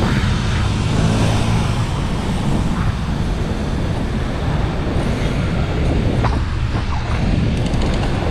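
Steady city traffic noise heard while riding a bicycle, with a constant low rumble of wind on the action camera's microphone.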